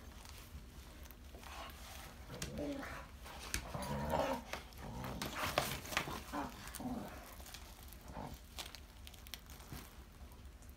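Two pit bulls play-fighting, giving short grumbling growls in a cluster from about two to seven seconds in, amid scattered clicks and rustles.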